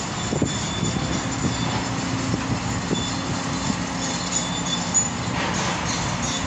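Demolition excavator's diesel engine running steadily under hydraulic load as its grab works, with scattered knocks and clatter and short high-pitched metallic squeals.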